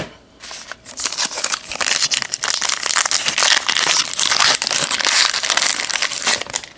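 Foil wrapper of a 2016 Allen & Ginter trading-card pack being crinkled and opened: a dense run of crackling for about six seconds, with a sharp click right at the start.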